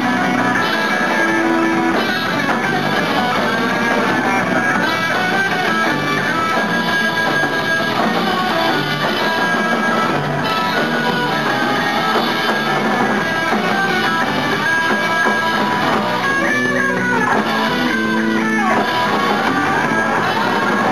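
Live rock band playing loud, steady music: electric guitars over bass and drums. A few seconds before the end come a couple of falling pitch slides.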